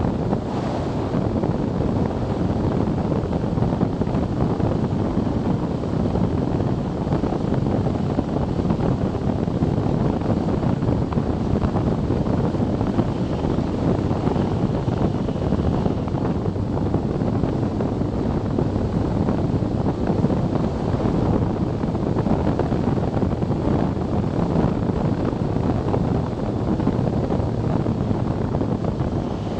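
Steady wind rushing over the microphone of a motorcycle-mounted action camera at about 40 mph, with the motorcycle's engine and road noise blended underneath.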